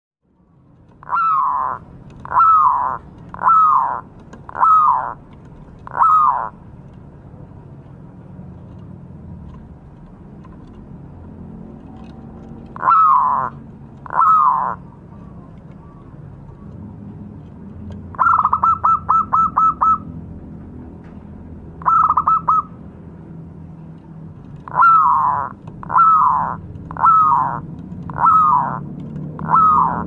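Zebra dove (perkutut) cooing: a string of five falling coos about a second apart, a pause, two more coos, then a quick stuttering run of short notes midway, and another five coos near the end.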